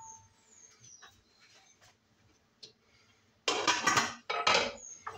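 Dishwashing at a stainless steel kitchen sink: a few small clinks, then two short loud bursts of clattering and splashing about three and a half seconds in.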